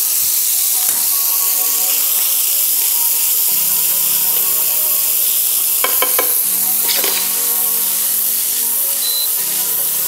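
Ground beef mince sizzling in a frying pan, stirred with a wooden spoon, with a few sharp scrapes and knocks of the spoon against the pan about six and seven seconds in.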